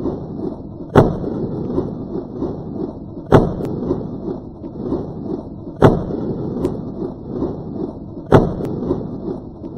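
Gunshots: four sharp bangs about two and a half seconds apart, each with a fainter crack just after, over a steady rough background noise.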